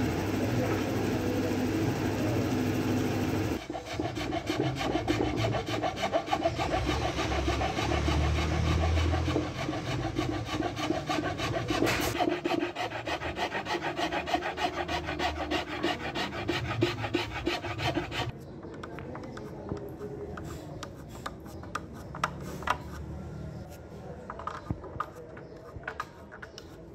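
A steady hum for the first few seconds gives way to hand-sanding of the wooden table edge: quick, rhythmic back-and-forth rubbing strokes of an abrasive pad on bare wood. About 18 seconds in, the sanding stops and quieter scraping with a metal blade on the old finish takes over, with scattered light ticks.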